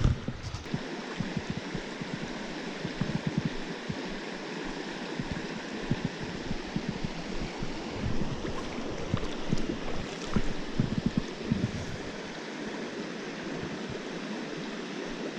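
Mountain stream running steadily over rocks, with occasional low bumps on the microphone.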